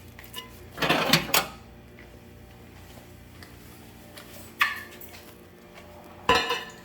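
Clinks and clatter of a glass microwave turntable plate being lifted out and handled: a cluster of knocks about a second in, one near the middle, and another near the end.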